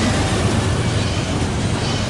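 Intermodal freight train passing close by: a loud, steady low rumble with rolling noise from the wheels and cars on the rail, no horn sounding.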